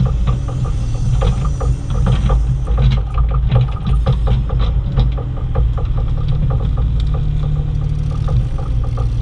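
Bobcat E35i compact excavator's diesel engine running steadily while it digs, with frequent rattling and clicking over the engine note.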